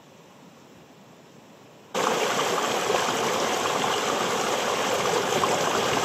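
Mountain river water rushing and splashing over a boulder, heard close up as a loud, steady rush that starts suddenly about two seconds in. Before it there is only a faint, even hiss.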